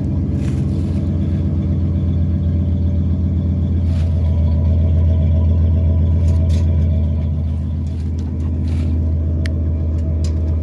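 Ford OBS F-150 idling through a new Flowmaster Super 44 exhaust with 4-inch tips: a steady, deep exhaust note at a warm idle after a cold start. It swells a little midway, then settles back.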